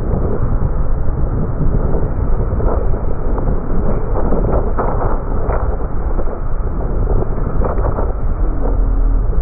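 JR Freight container train rolling past close by, slowed down: a steady low rumble of wheels on rail with irregular clanks from the wagons.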